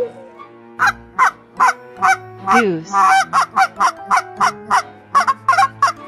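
Domestic goose honking: a rapid series of short, loud honks, several a second, with one drawn-out falling call about two and a half seconds in.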